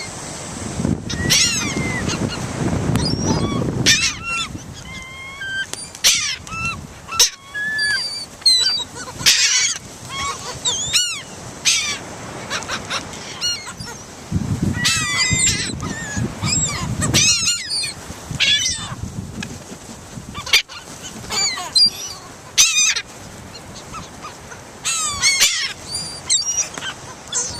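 A flock of seagulls calling, many short, overlapping squealing cries one after another, with a low rumble twice.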